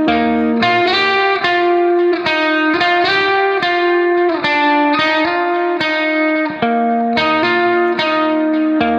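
Background music: a guitar plays a melody of short plucked notes, two or three to the second, at a steady level.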